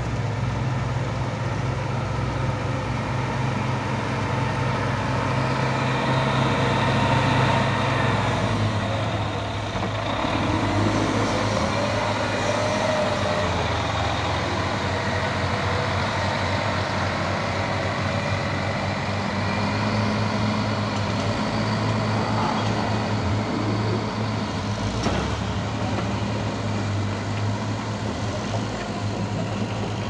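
Caterpillar 936F wheel loader's diesel engine running under load, its engine note shifting up and down in pitch a few times as it drives.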